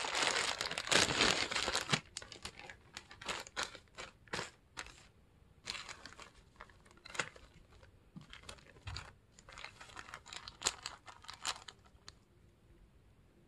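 Clear zip-lock plastic bags holding agarwood chips crinkling as they are handled. The crinkling is loudest and continuous for the first two seconds, then comes in short irregular rustles that thin out near the end.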